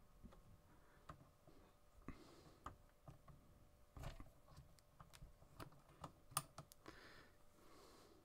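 Near silence with a few faint, scattered clicks and soft rustles of a fly being handled and taken out of a fly-tying vise.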